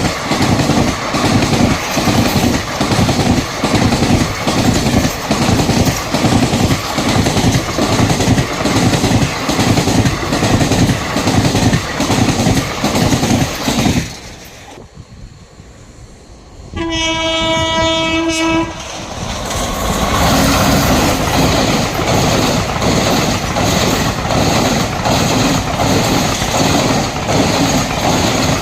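Express trains passing at speed: wheels clatter in an even rhythm over the rail joints, then the sound drops away briefly. A train horn sounds one steady note for about two seconds, and a train runs past for the rest.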